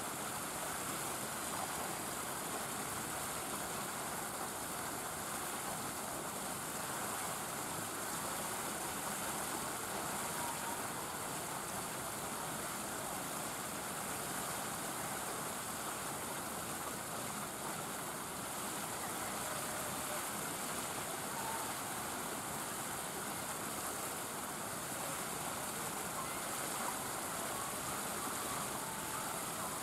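Steady, even rushing background noise with no distinct events, a few faint short tones barely above it.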